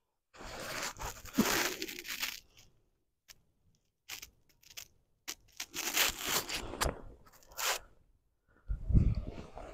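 Handling noise as a camera is picked up, moved and set back down on dry pine needles: irregular bursts of rustling and scraping with a few sharp clicks, and low thumps near the end.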